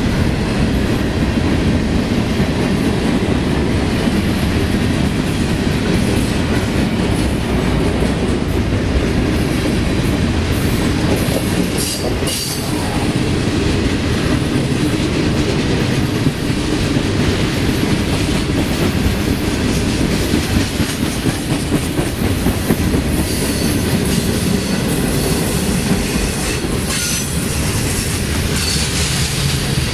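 Freight train cars (covered hoppers, tank cars and boxcars) rolling past close by in a steady loud rumble of steel wheels on rail. Short high wheel squeals come in near the middle and several times toward the end.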